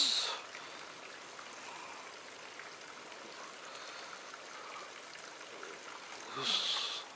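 Steady running water of a stream, with two brief louder noises, one near the start and one near the end.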